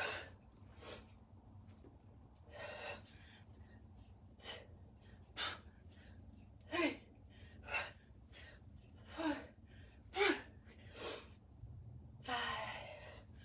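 A woman's sharp, forceful breaths with each kettlebell snatch rep, about one a second, several voiced with a falling pitch like short grunts. A steady low hum runs underneath.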